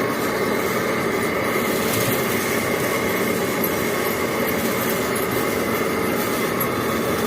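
Metal-working lathe running through a boring cut: a steady machine noise with a constant whine in it.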